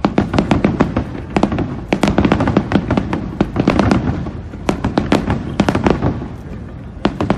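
Aerial fireworks shells bursting in a dense barrage of sharp bangs and pops, several a second, with a short lull near the end before the bangs pick up again.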